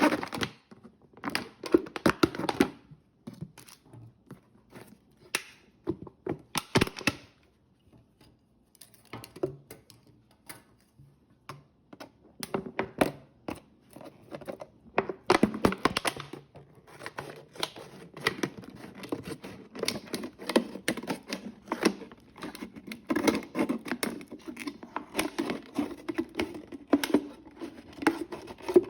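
A plastic 2-liter soda bottle being cut and handled to make a funnel: irregular crinkling, scraping and clicking of thin plastic, quieter for a few seconds in the middle.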